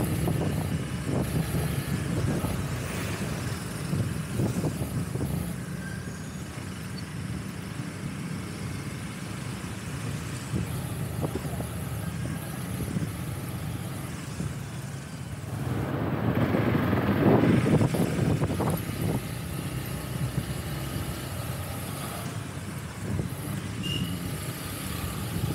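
Motorcycle ridden at low speed in city traffic: a steady low engine and road rumble with other traffic around, growing louder for a couple of seconds about two-thirds of the way through.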